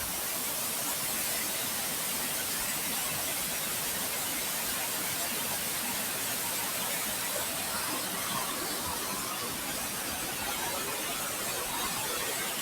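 Steady, even rushing hiss with no distinct events or tones.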